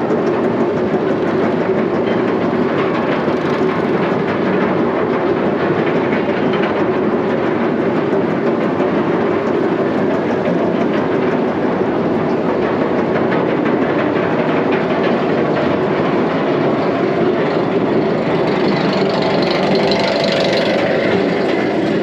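B&M wing coaster train moving along its track, a steady mechanical rattle made of many fast clicks heard from the front row. Some hiss builds near the end.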